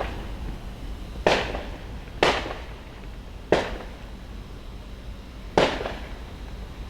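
Fireworks going off: four sharp bangs spaced one to two seconds apart, each trailing off in a short echo.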